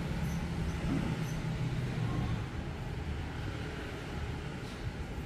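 Low engine rumble of a passing vehicle, strongest in the first two seconds and then easing off.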